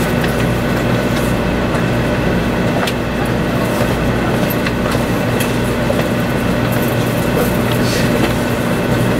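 The inside of a 500 series Shinkansen's passenger car while the train runs: a steady, even rumble of wheels and air with a constant low hum, some faint high steady tones and occasional faint ticks.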